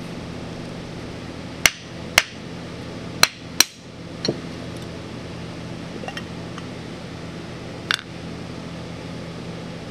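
Sharp metallic knocks and clicks of hand tools on a carburetor as its float bowl is opened: four loud knocks between about one and a half and four seconds in, a softer one just after, and one more near the end, over a steady low hum.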